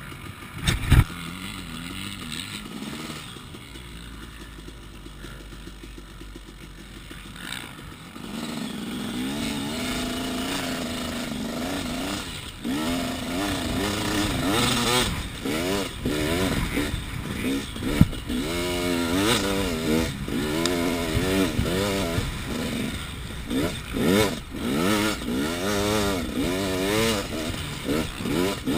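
KTM 300 EXC two-stroke dirt bike engine running low and steady for the first eight seconds or so, then revving hard as it is ridden, its pitch rising and falling over and over with the throttle and gear changes. A couple of sharp knocks stand out, one about a second in and one about two-thirds of the way through.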